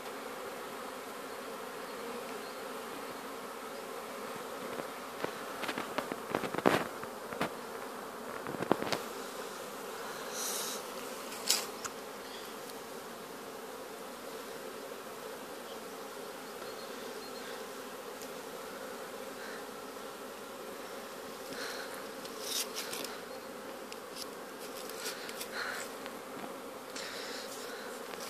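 Honeybees flying around the entrances of wooden hives, a steady hum of many bees in flight. Several sharp clicks break in: a cluster, loudest about a quarter of the way in, and another group near the end.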